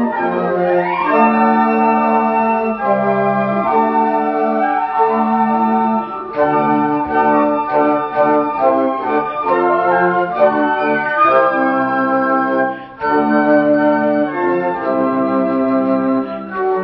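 Flute choir playing held chords that change every second or two, with quick rising runs near the start and again about two-thirds through.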